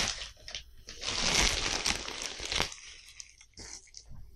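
Clear plastic wrapping around pillows crinkling and rustling as hands pull and handle it. It is loudest about one to two and a half seconds in, then softer.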